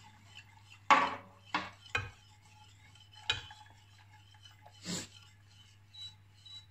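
A spoon knocking and scraping against the inside of a stainless steel saucepan as the pudding mixture of milk, pudding powder and colouring is stirred. There are about five separate sharp knocks, the loudest about a second in.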